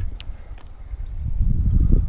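Wind buffeting an action-camera microphone, an uneven low rumble that eases early on and builds again in the second half. A single sharp click from the spinning reel being handled comes just after the start.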